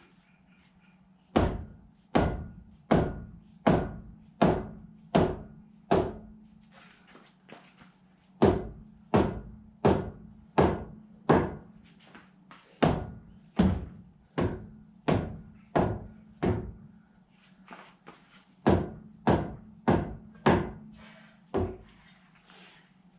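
Rubber hammer striking a knock-off wheel spinner to loosen it, in three runs of heavy, evenly spaced thuds at a little over one blow a second, with short pauses between the runs.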